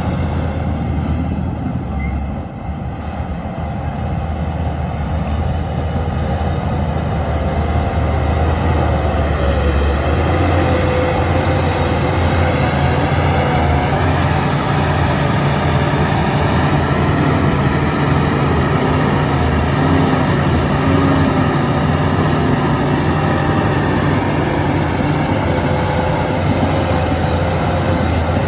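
Shantui bulldozer's diesel engine running under load, dipping briefly about two seconds in, then building up and holding steady.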